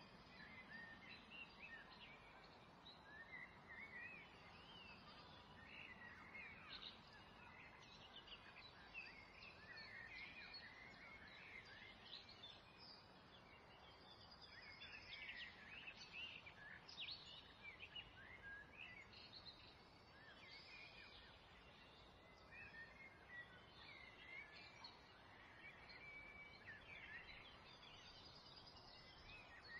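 Faint birdsong: many short chirps and trills over a low steady hiss.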